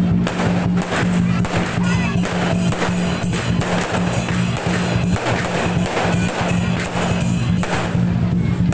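Loud rhythmic percussion music with repeated metallic clashes, like cymbals, over a steady low drone.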